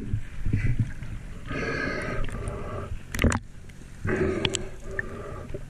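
Scuba regulator breathing underwater: two long breaths, each about a second, with a sharp click between them.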